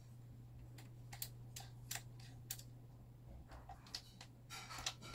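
Scattered faint clicks and ticks of a small Allen key and screw being handled and turned by hand, with a few quicker clicks near the end, over a low steady hum.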